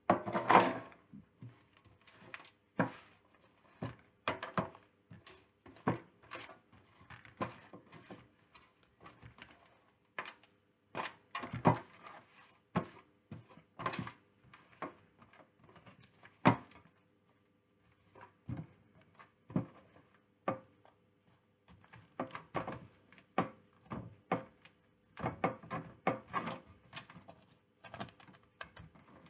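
Irregular knocks, taps and rustles of plastic tubs and loose substrate being handled by hand, with a faint steady hum underneath.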